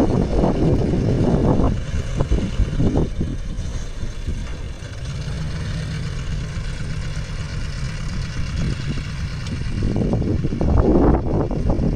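John Deere tractor engine running, louder and rougher at first and again near the end, steadier and quieter in between.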